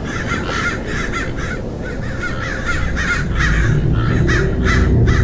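Crows cawing in rapid, overlapping calls, with a deep low drone swelling in under them about halfway through.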